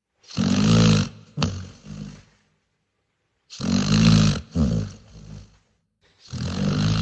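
Dog snoring: three snores about three seconds apart, each a loud snore followed by a shorter, quieter one.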